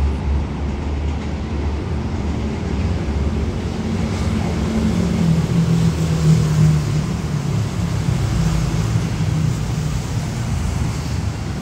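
Road traffic: motorcycle and car engines idling and pulling away across a railway level crossing, with an engine tone rising and falling through the middle. A low hum from the departing diesel-electric locomotive fades in the first few seconds.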